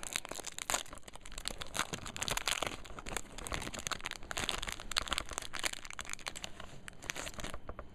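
Foil wrapper of a Pokémon trading card booster pack being torn open and crinkled in the hands: a continuous run of crackling that thins out near the end.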